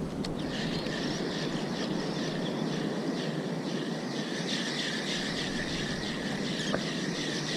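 Spinning reel being cranked to retrieve a lure: a steady gear whirr with an even pulse from the turning handle, over a wash of wind and surf.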